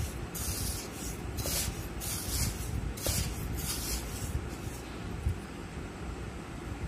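Hand mixing dry semolina and flour in a stainless steel bowl: rhythmic gritty swishing strokes, about two a second, that die down after about five seconds.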